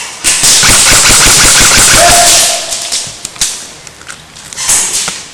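Airsoft gun firing on full auto: one long rapid burst of about two and a half seconds, followed by a few shorter shots near the end.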